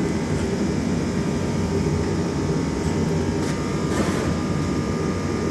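Air compressor running steadily as a backhoe rear tire is inflated to seat its bead on the rim, with a short burst of hiss about four seconds in.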